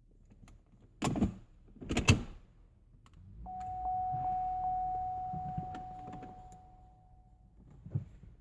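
Two clunks about a second apart, then a small electric motor in the car whirring for about four seconds with a steady high whine, swelling and fading, and a click near the end.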